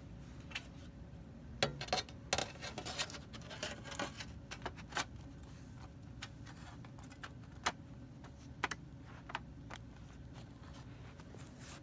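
Clicks and light metallic rattles of a MacBook Pro's aluminium bottom panel being fitted back on and pressed into place by hand: a dense run of clicks about two to five seconds in, then scattered single clicks.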